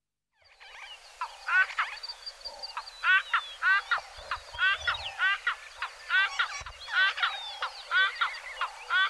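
A bird's rapid rattling calls, each a quick run of notes, repeated about once or twice a second over a faint steady high tone.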